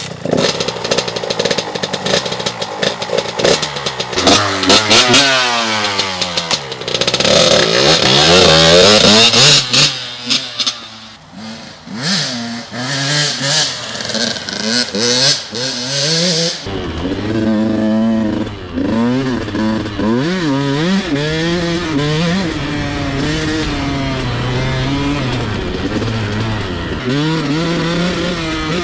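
2021 Husqvarna TC 85 single-cylinder two-stroke dirt bike engine, running with a cracked reed petal: clattering kicks at first, then the engine catches and is revved up and down. Later it is heard under way as the bike is ridden, revs rising and falling.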